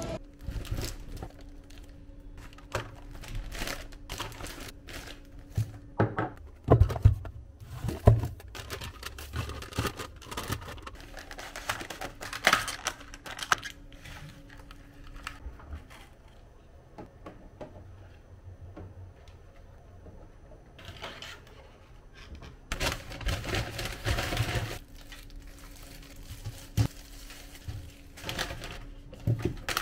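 Groceries being unpacked by hand: a plastic clamshell egg pack and a paper grocery bag crinkling and rustling, with irregular clicks, taps and knocks as items are handled and set down.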